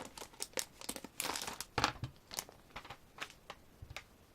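Rustling and crinkling of CD album packaging being handled, with irregular small clicks and taps that thin out near the end.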